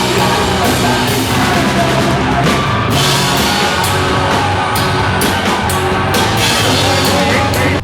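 Loud rock music with a pounding drum kit.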